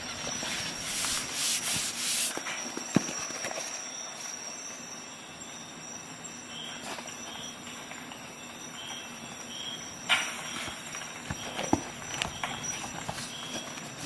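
Handling noise from a metal link bracelet multi-tool: a stretch of rubbing about a second in, then scattered light clicks, the sharpest about three seconds in and a few more near the end.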